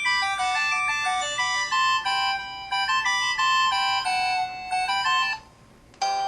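MS300 mobile phone playing one of its built-in ringtone melodies: a bright, quick electronic tune of many notes that stops about five seconds in. After a brief pause another tune starts near the end.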